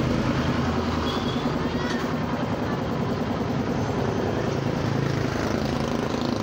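Motorcycle engine running steadily, a continuous low pulsing drone.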